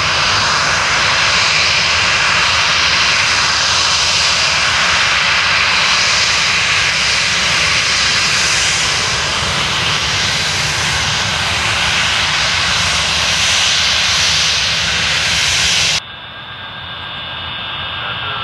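Boeing 737's twin CFM56 turbofan engines running loud and steady: a wide rushing jet noise. About sixteen seconds in it cuts off suddenly to a quieter jet engine with a high whine, slowly growing louder.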